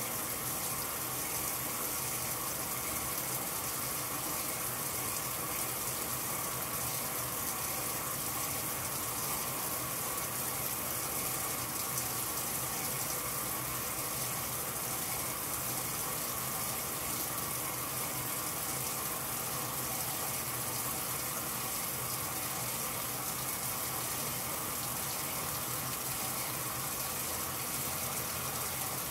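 A 1985 Whirlpool Supreme belt-drive top-load washer filling: a steady gush of water pouring into the tub onto the clothes.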